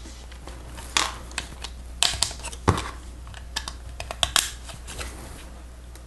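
Plastic Lego Technic pieces being handled and pressed together: scattered sharp clicks and small rattles, a few clusters of several quick clicks.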